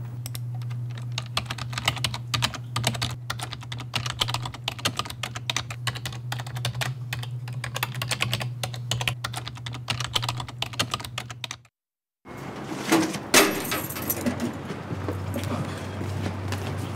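Rapid typing on a computer keyboard, a dense run of key clicks over a steady low hum. It stops at a cut about twelve seconds in, and after a moment of silence come a few knocks and rustling.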